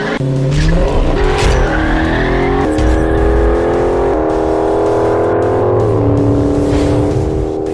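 A car engine revving hard and holding high revs at a few steady pitches. The pitch rises early, steps up twice, then drops back about two thirds of the way in.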